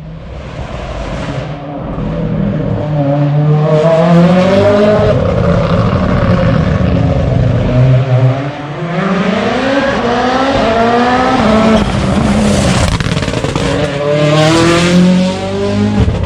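Hyundai i20 N Rally1 rally car's turbocharged four-cylinder engine accelerating hard, its pitch climbing and dropping back with each upshift, about four times.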